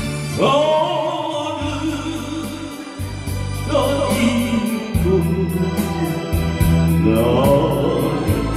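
A man singing a slow song into a handheld microphone over an amplified backing track. He sings three long phrases, each opening with an upward swoop into a held, wavering note, over a steady bass line and a regular light beat.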